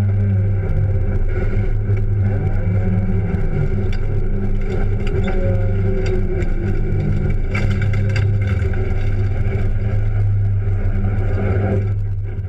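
Renault 5 race car's engine heard from inside the cabin, running with a steady drone at fairly constant revs, with a few clicks and knocks from the car around the middle. The sound begins to drop away at the very end.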